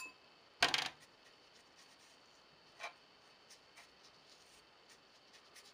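A wet watercolor brush stroking over cold-press watercolor paper to wet it: a short scratchy swish about half a second in, a fainter one near the middle, then a few faint ticks.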